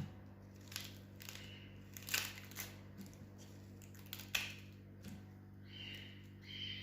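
Dry red onion skin crackling and tearing as it is peeled off by hand, in short scattered crackles, over a steady low hum.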